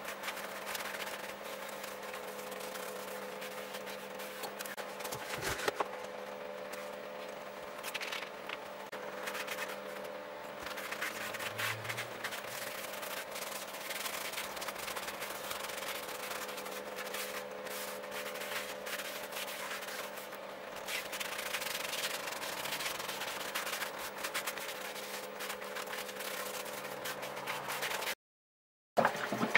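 Repeated hand rubbing strokes on a 14-inch steel wheel rim, a continuous irregular scratchy rubbing, over a faint steady hum; the sound cuts out briefly near the end.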